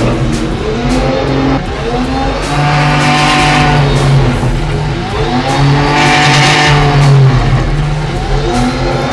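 Race car engine being revved hard, its pitch climbing and dropping back several times.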